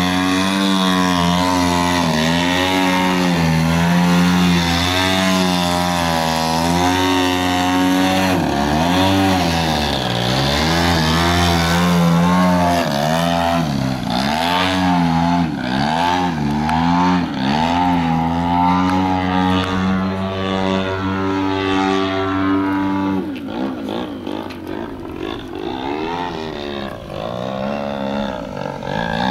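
Engine and propeller of a 35% scale Aeroworks Extra 260 RC aerobatic plane. Through the first several seconds the engine note wavers up and down with quick throttle changes as the plane hangs nose-up in a hover. It then rises and falls in pitch again and again as the plane swoops past, and turns fainter and higher after about 23 seconds as the plane climbs away.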